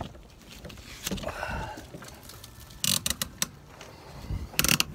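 Handling of a canoe tie-down rope with its hook and quick-release pulley: a few brief scuffs and clicks, a cluster about three seconds in and the loudest near the end.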